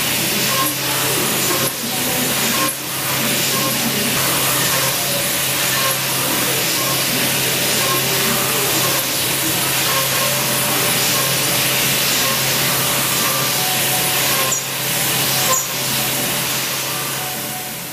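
Four-flute 10 mm end mill on a CNC milling machine cutting 50 HRC hardened medium-carbon steel at 7,200 rpm and 8,000 mm/min feed: a loud, steady cutting noise over a low spindle hum. It dips briefly a few times and fades away near the end as the cut finishes.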